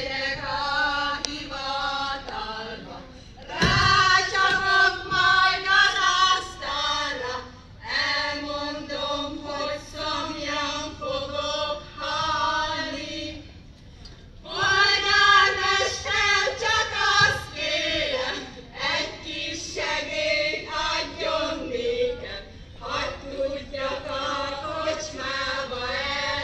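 A group of women singing a Hungarian folk song together without instruments, heard through stage microphones and loudspeakers. The song comes in phrases, swelling louder about four seconds in and again about fifteen seconds in.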